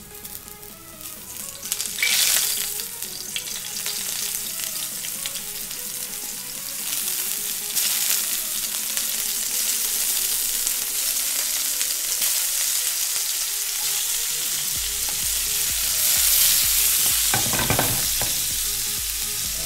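Food frying and sizzling in hot oil in a pan as ingredients are put in. The sizzle swells louder about two seconds in and again near the end.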